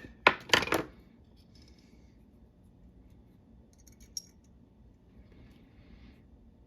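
Small pepper grinder parts being handled and fitted together by hand. There are a few sharp clicks and clatters in the first second, then faint rustling and a single sharp click about four seconds in.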